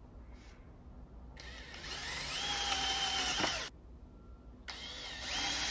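Cordless drill boring a hole through a pine 1x4 board. The motor whine and the bit cutting run for about two seconds, stop, and start again about a second later for the next stretch of drilling.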